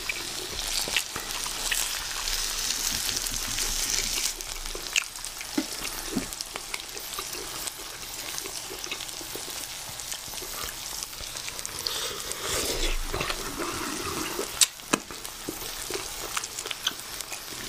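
Knife and fork cutting grilled steak on a plate: a steady crackling, scraping noise with a few sharp cutlery clinks.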